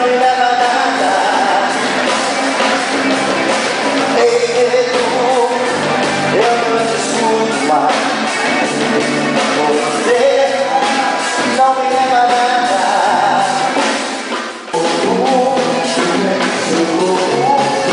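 Live band playing with electric guitars, drum kit and percussion, a male lead voice singing over it. The music drops out briefly near the end and comes straight back in.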